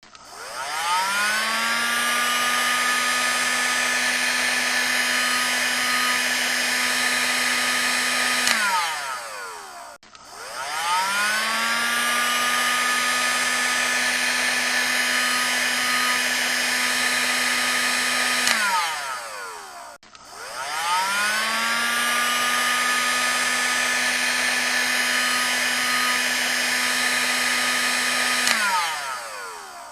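Hair dryer on its high setting, switched on three times: each time the motor whine rises as it spins up, runs steady with a rush of air for about seven seconds, then winds down in falling pitch as it is switched off.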